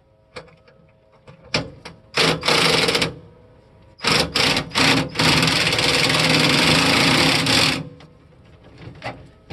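Handheld cordless power driver run once for under a second, then a few quick blips and a steady run of about three seconds, backing off a fastener on the snow cab's support.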